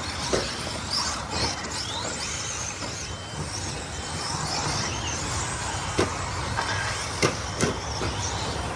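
Electric RC short-course trucks racing on dirt: motors whining up and down over a steady rumble of noise, with several sharp knocks in the second half.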